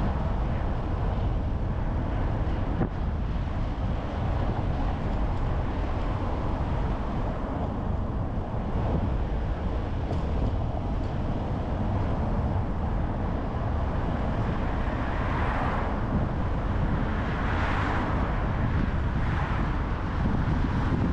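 A car being driven, with a steady low rumble of engine and road noise. The hiss rises briefly about three times in the last third.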